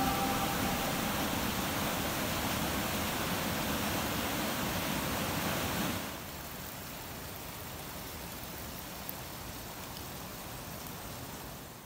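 Rocky mountain stream rushing and splashing over boulders, a steady wash of water noise that drops to a quieter level about halfway through.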